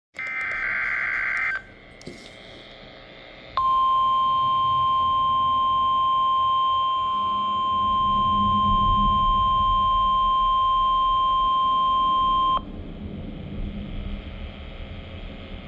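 NOAA Weather Radio weekly test signal: a burst of SAME digital header data tones for about a second and a half. About two seconds later the steady 1050 Hz warning alarm tone sounds, holds for about nine seconds, then cuts off abruptly to radio hiss.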